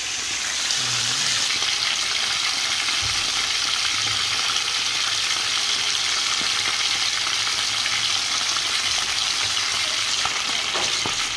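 Pieces of fish frying in hot oil in a skillet: a steady crackling sizzle that grows louder about a second in.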